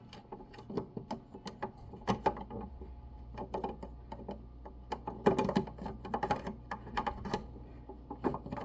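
Irregular small clicks and knocks of sewing-machine parts being handled as a part is pushed and fiddled with to snap it into place, without it catching.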